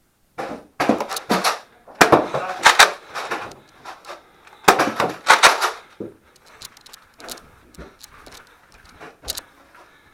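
Nerf Rival blasters firing in three clattering volleys, with foam rounds striking and a few sharp knocks; one loud crack comes near the end.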